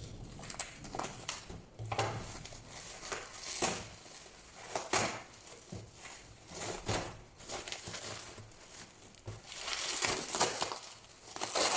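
Plastic bubble wrap being cut with scissors and pulled off a boxed package: irregular crinkling and rustling, loudest near the end.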